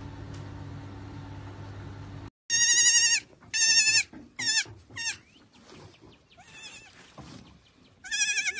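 Baby goat bleating in high, wavering cries: two longer bleats, two short ones, then another near the end. Before it, a steady low hum cuts off about two seconds in.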